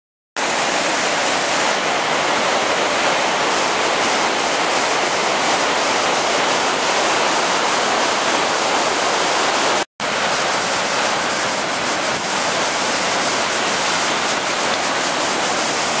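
Chaudière River falls in high flow: the steady, loud rush of a large waterfall. The sound starts after a split second of silence and drops out for an instant about ten seconds in.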